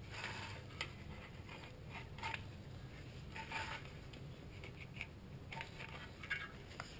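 Plastic credit card scraping old silicone sealant off an aluminium engine oil pan's gasket flange: a run of faint, short, irregular scrapes with a few light clicks.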